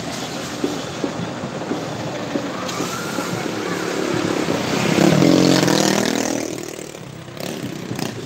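Road traffic passing close by: a passenger jeepney's diesel engine, then an SUV, with the engine and tyre noise swelling to its loudest about five seconds in and fading away by about seven seconds.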